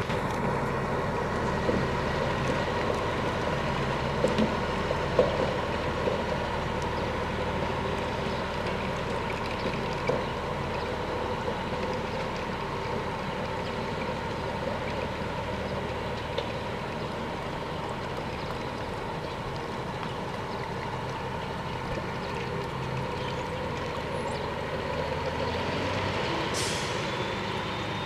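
The Cummins ISM diesel of a 2007 International 9200i truck tractor running as the truck pulls away at low speed, slowly growing fainter. A few sharp clicks come in the first ten seconds, and a short hiss comes near the end.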